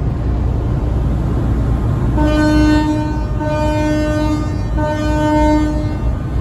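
Ship's horn sounding three short blasts of the same steady pitch over a steady low rumble.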